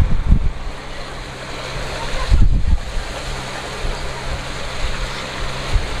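Wake churning and splashing behind a motor launch under way, over the steady low hum of its engine. Wind buffets the microphone, most strongly about two and a half seconds in.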